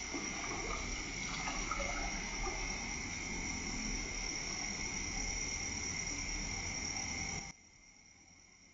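Night chorus of crickets and other insects, a steady high trilling at two pitches, with a few scattered brief calls about a second in. It cuts off abruptly near the end to a much fainter chorus.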